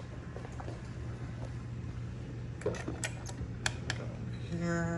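A few sharp clicks and taps as a hand takes hold of the beacon's glass lens and its metal clamp with the wing nut, over a steady low hum.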